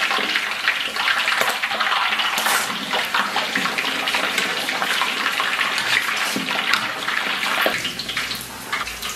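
A blanched, still-wet pork hock deep-frying in a wok of hot oil, sizzling and crackling densely. It eases slightly near the end. This is the frying step that blisters the skin into 'tiger skin'.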